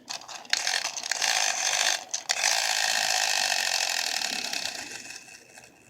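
Clockwork spring motor of a tin wind-up toy boat whirring as it turns the little propeller, with a brief break about two seconds in. It fades over the last couple of seconds as the spring runs down.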